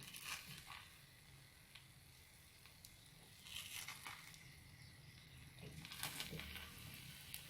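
Faint scraping of a spatula pushing setting scrambled eggs from the edge of an oiled frying pan into the centre over low heat, a few soft strokes several seconds apart.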